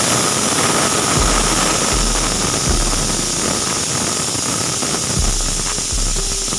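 Pressure cooker whistle blowing off steam: a loud, steady hiss with a faint high tone inside it.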